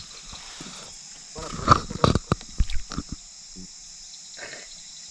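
Steady high-pitched insect chorus, with a quick cluster of sharp knocks about one and a half to three seconds in.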